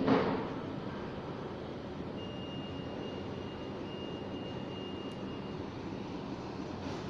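CoreXY 3D printer running a fast TPU print: a steady whir of cooling fans and stepper motors, with a brief louder bump at the very start and a thin high whine for a few seconds in the middle.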